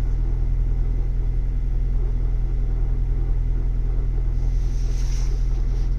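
2023 Ford Bronco's 7-speed manual (MT88) transmission making a steady rotational scraping grind, like tumbling rocks, over the engine's idle while in neutral with the clutch engaged after a cold soak. It is the cold-start noise that Ford's TSB 22-2371 says may be due to the 5th and 6th gear synchronizer rings, and it stops when the clutch is pushed in.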